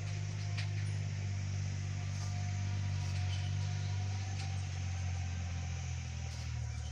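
Steady low engine-like drone in the background, with a few faint light clicks from small parts being handled.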